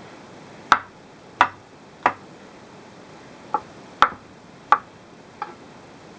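Kitchen knife slicing button mushrooms on a wooden cutting board, the blade knocking on the board seven times. The knocks come about every two-thirds of a second, with a short pause after the third.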